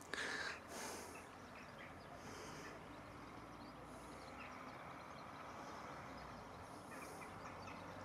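Faint, steady outdoor ambience, with a few brief soft sounds in the first second.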